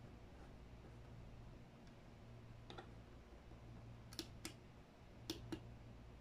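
A handful of small sharp clicks, about five, from fingers handling a small object on a desk, the last four coming in two quick pairs in the second half. A steady low electrical hum lies under a quiet room tone.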